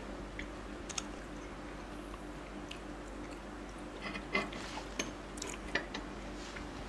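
A metal spoon clicking and scraping against a small ceramic dessert cup as a soft dessert is scooped out, with a few sharp clicks about a second in and again between four and six seconds in. Quiet chewing sounds over a faint steady hum.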